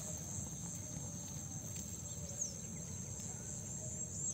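Faint field ambience: a steady high insect drone with short rising chirps that repeat near the end, over a low rumble.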